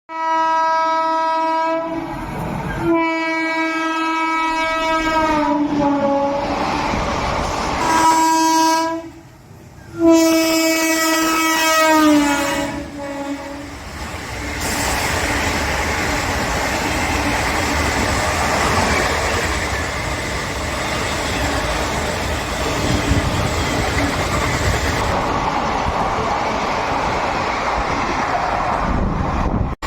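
WAG-9 electric locomotive horn sounding four blasts, the second and fourth sliding down in pitch near their end as the locomotive passes at speed. A steady loud rush of ICF coaches running by at about 110 km/h follows.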